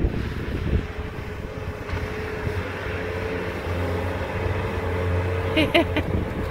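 Bobcat skid-steer loader's engine running with a steady whine, the low drone growing heavier for a couple of seconds. A voice is heard briefly near the end.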